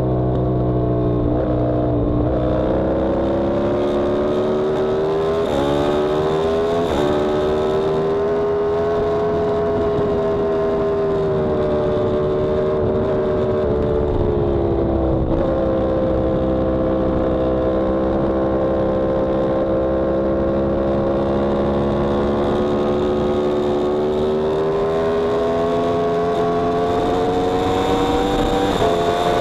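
Yamaha R1M's crossplane inline-four engine running hard at high revs, heard from on the bike. Its pitch drops and jumps with gear changes and throttle early on, holds through a long steady stretch, then climbs slowly near the end.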